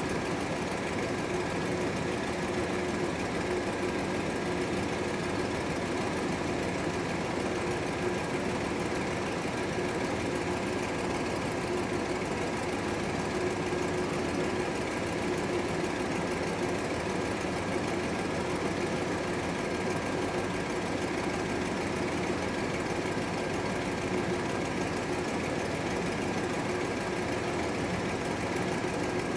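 1977 GMC motorhome's Oldsmobile V8 idling steadily with the dash air conditioning running during a refrigerant recharge, with a faint steady whine over the engine.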